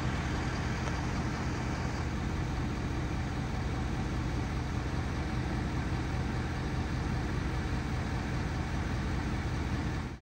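Steady engine drone: a low hum under an even hiss, cutting off abruptly near the end.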